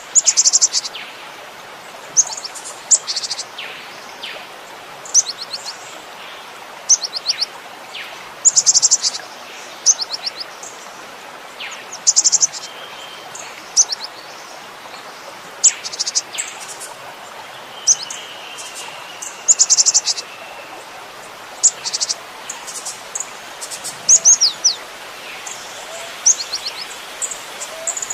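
Cinereous tit (gelatik batu) singing and calling: short bursts of high, rapidly repeated notes every second or two, over a steady background hiss.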